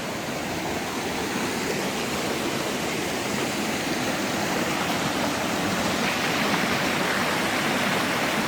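Flash-flood runoff rushing down a desert canyon creek: a steady roar of flowing water that grows gradually louder.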